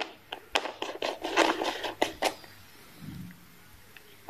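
Sharp metal clicks and short scrapes as a metal rebuildable dripping atomizer is twisted and handled on a box mod, in a quick run from about half a second in to just past two seconds, then a single sharp click at the end.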